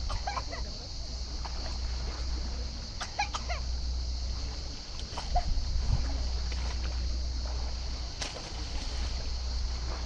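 Small waves washing on a pebble shore, with a steady low wind rumble on the microphone. A few short, faint calls sound in the distance now and then.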